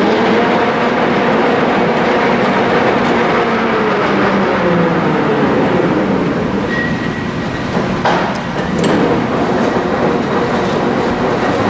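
Geared headstock of a LeBlond 30" x 120" engine lathe running under its 15 hp motor, a steady gear whine and rattle whose pitch falls over the first few seconds as the spindle speed drops, then holds steady. Two sharp clunks come about eight and nine seconds in.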